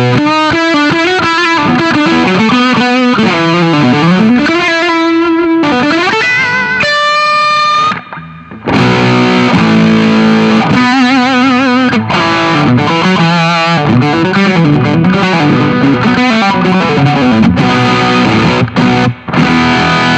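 Electric guitar through a Vertex Dynamic Distortion pedal pushed by a boost, the board's highest-gain sound, playing riffs and lead lines with a smooth, compressed distortion. About seven seconds in a held high note rings out, and the playing stops briefly before picking up again.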